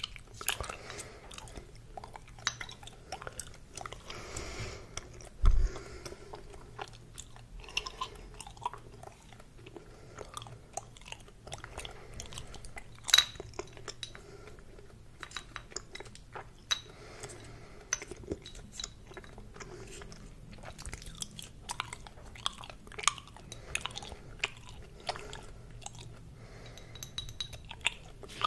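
Hubba Bubba bubble gum being chewed: an irregular run of wet smacks and clicks of the mouth working the gum. One louder thump comes about five and a half seconds in.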